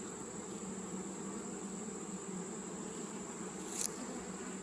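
Swarm of honeybees buzzing around an open hive, a steady hum. A short high scratch near the end.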